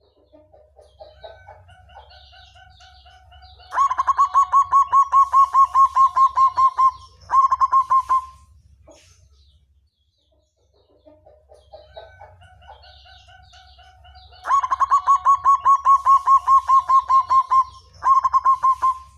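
Zebra dove (perkutut) singing its song twice: a few soft coos, then a fast run of loud, evenly spaced notes, about six a second, closing with a short final phrase. A low steady hum runs underneath.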